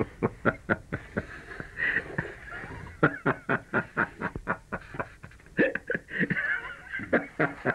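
A man laughing in a long run of short, quick bursts, with a brief lull about two seconds in before the laughter picks up again.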